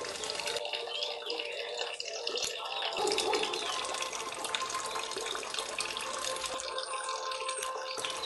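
Steady rush and splash of water from a garden hose pouring into a turtle pond.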